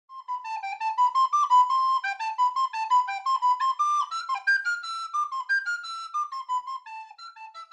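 Solo recorder playing a quick melody, one line of short notes that steps downward in pitch and grows quieter over the last few seconds.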